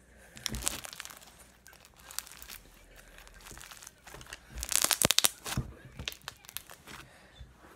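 Crunchy slime packed with foam beads being squeezed and stretched in the hands, giving crackling pops and crunches. A short flurry comes about half a second in and a denser, louder one about five seconds in.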